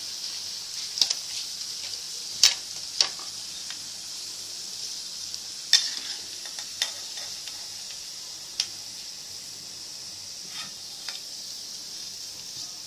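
Onion pakoras deep-frying in hot oil in a wok, a steady sizzle, with a metal spoon clinking sharply against the wok and plate several times as the fried pakoras are lifted out.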